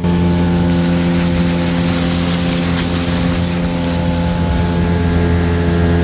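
Speedboat engine running steadily at high speed, with wind and rushing water on top.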